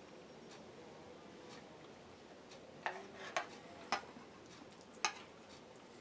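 Fork clinking against a bowl four times, light and unevenly spaced, between about three and five seconds in, over faint room tone.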